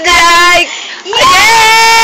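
Young voices shouting together in a high pitch: a short call, then from a little past a second in, one long drawn-out shout held at a steady pitch.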